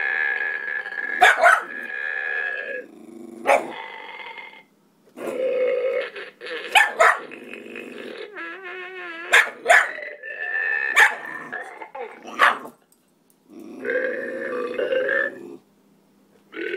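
A small mixed-breed dog barking and growling at a farting toy, with repeated sharp barks between longer stretches of growling and whining.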